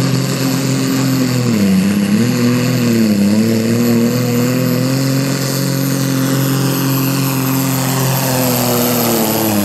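Deutz-Fahr diesel tractor at full throttle, dragging a weight-transfer pulling sled, its engine under heavy load. The revs sag twice in the first few seconds as the load bites, recover and hold high, then fall away near the end. A thin high whistle runs over the engine sound.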